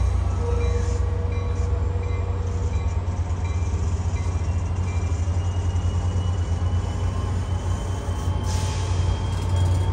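NJ Transit commuter train rolling slowly out of the station: a steady low rumble, with a faint whine that climbs slowly in pitch over the second half.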